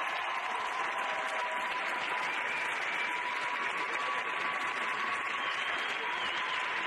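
Audience applauding steadily, with a faint steady tone running through the clapping.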